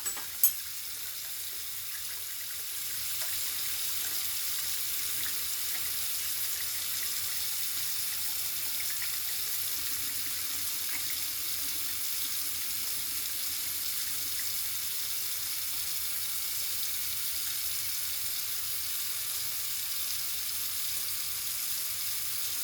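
Tap running steadily into a sink, with a sharp click about half a second in; the running water gets a little louder about three seconds in.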